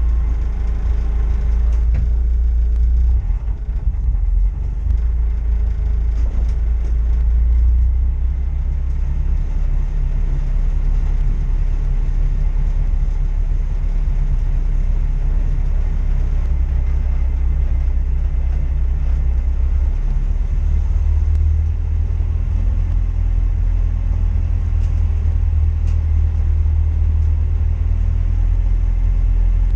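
Low, steady rumble of a racing machine's engine running, its pitch stepping up or down a few times. The title reports an abnormal noise from it.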